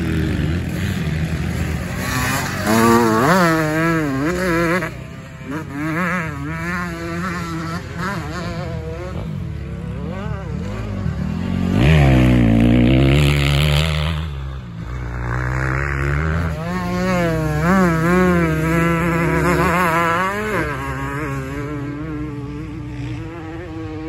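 Dirt bike engine revving up and down over and over as it is ridden round a motocross track, the pitch rising with each burst of throttle and dropping off between them, loudest about halfway through.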